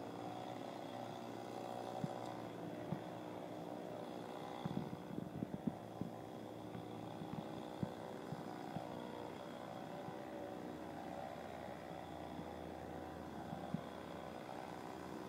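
Chainsaw idling steadily, with a few short knocks and clatters, most of them about five to six seconds in.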